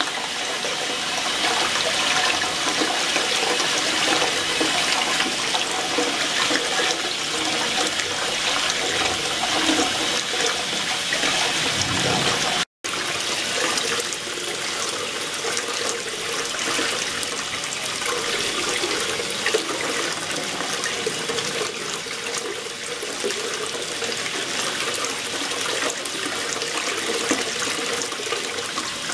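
Water churning and rushing steadily in a stainless steel ultrasonic tank with liquid circulation running, a continuous hiss with a faint hum underneath. It cuts out for an instant near the middle.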